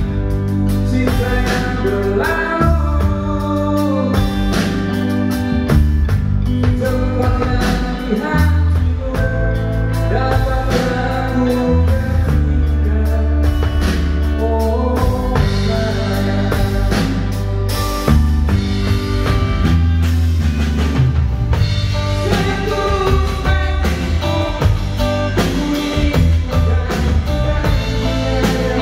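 Live band playing a pop song through a PA: drum kit, bass guitar and electric guitar, with a man singing lead vocals into a microphone in places.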